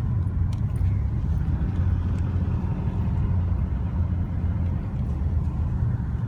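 Mitsubishi Triton turbo diesel ute running steadily while driving, a continuous low rumble with no clear revving or turbo flutter.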